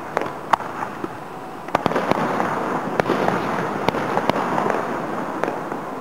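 Aerial fireworks display heard from about a quarter mile away: a string of sharp bangs and crackles from bursting shells, irregularly spaced, over steady background noise.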